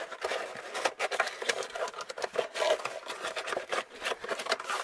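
Cardboard toy box being handled and worked open: irregular scraping and rubbing of the cardboard with short clicks and taps as the stuck contents are pulled at.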